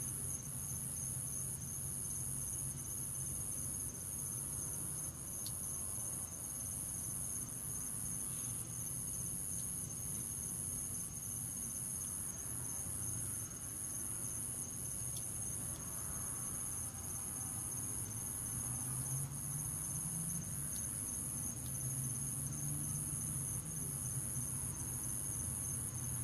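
Crickets trilling steadily and high-pitched, the sound swelling about once a second, over a low steady hum.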